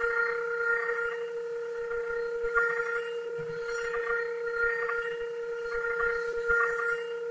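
CNC router spindle running at speed with a steady high whine, and rough cutting noise that rises and falls as the bit works the wood of a turned table leg.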